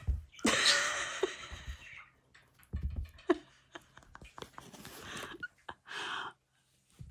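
Small dog scrabbling and rolling on a fleece-covered couch: fabric rustling and claws scratching at the upholstery, loudest for the first two seconds, with scattered scrapes and a second short burst near the end.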